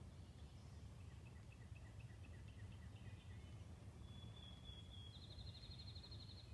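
Faint wild songbirds singing: a run of short chirps in the first half, then a high held note and a fast trill near the end, over a low steady background rumble.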